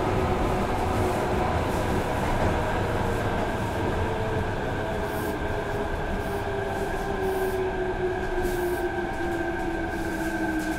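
Osaka Subway 66 series train with a Mitsubishi IGBT-VVVF inverter running: the traction motor and inverter whine falls slowly in pitch as the train slows, over steady wheel-and-rail rumble.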